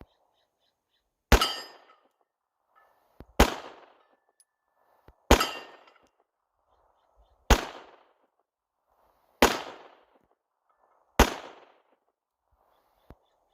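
Sig Sauer P226 9mm semi-automatic pistol firing six single shots, slow and evenly spaced about two seconds apart, each shot trailing off in a long echo.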